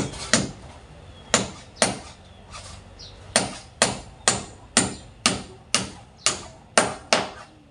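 A hammer striking, about a dozen sharp blows: two close together at the start, a couple more after a second, then a steady run at roughly two blows a second.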